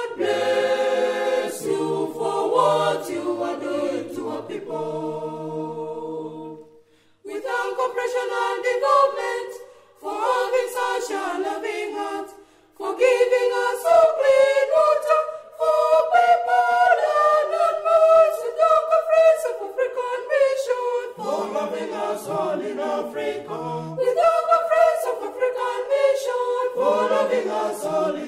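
Background music: an unaccompanied choir singing, breaking off briefly about seven, ten and thirteen seconds in.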